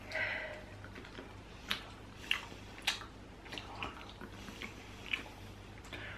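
Jelly beans being chewed: a scattering of small, quiet mouth clicks and smacks.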